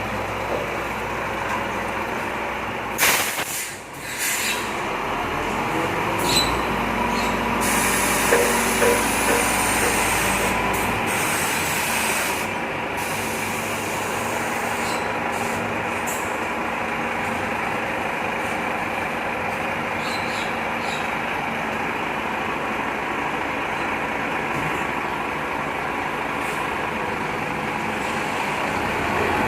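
Heavy truck engine running steadily, with a short, loud air-brake hiss about three seconds in.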